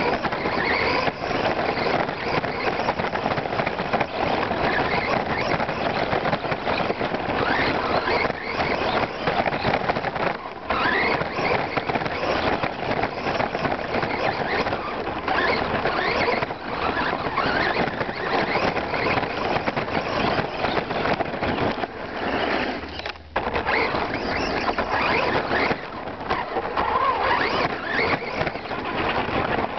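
Onboard sound of a Redcat Vortex EPX Pro electric RC short-course truck driving hard over dirt and grass: the brushless motor whines up and down with the throttle over a rushing, rattling noise of tyres, chassis and wind on the microphone. The sound drops briefly once, about two-thirds of the way through.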